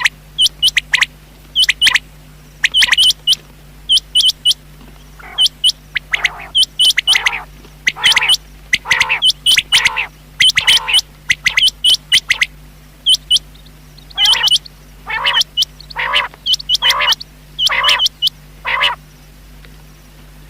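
Rain quail calling: sharp, high notes in quick pairs repeated over and over. From about a quarter of the way in until near the end, lower, longer notes come about once a second between them, over a steady low hum.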